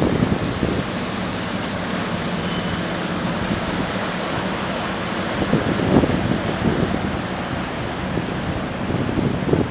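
Wind buffeting the microphone over a boat engine running steadily, with a stronger gust about six seconds in.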